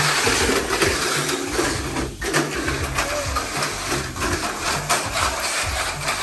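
Tamiya Mini 4WD cars running laps on a plastic multi-lane track: small electric motors whirring, with a dense stream of quick clicks and rattles as the cars run through the lanes.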